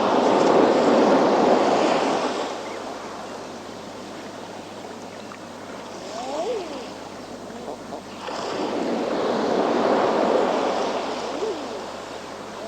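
Waves breaking on a rocky shore: two big surges of surf about eight seconds apart, with quieter wash between them. Short rising-and-falling seabird calls come between the surges and again near the end.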